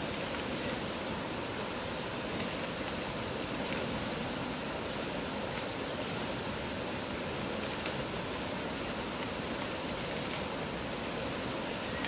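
Fast mountain river flowing over rocks, a loud, steady rush of water.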